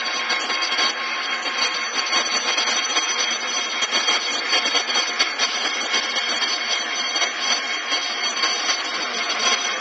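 Metal lathe running a Globe milling attachment that spins a 14-inch aluminium faceplate: a steady machinery hiss with several thin, high whining tones held throughout.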